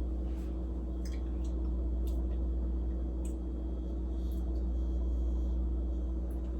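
A steady low electrical hum with a few faint, scattered clicks.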